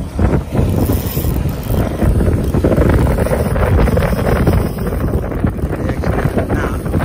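Wind buffeting the microphone: a steady, heavy rumble.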